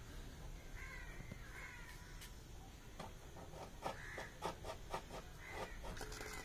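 Crows cawing faintly several times. From about three seconds in, a quick run of short clicks as a cat eats from a steel bowl.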